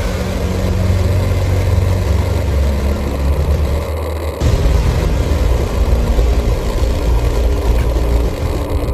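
Traxxas Summit RC truck's electric motor and drivetrain running as it is driven. The low rumble dips briefly about four seconds in, then comes back.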